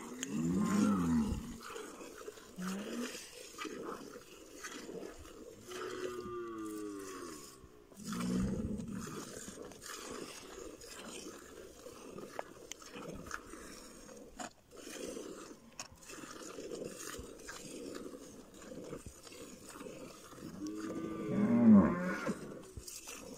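Cattle lowing in drawn-out calls about a second long, four or five times, the loudest near the end.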